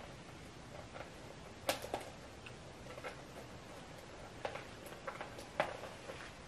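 Irregular small clicks and taps of a bag's detachable leather strap and its clasp being handled, as someone struggles to fasten the strap back onto a small pouch.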